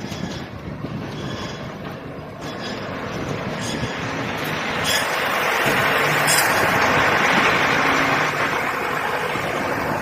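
Concrete pump running: a loud, dense mechanical hiss and rumble that swells in loudness over the first half and then holds steady.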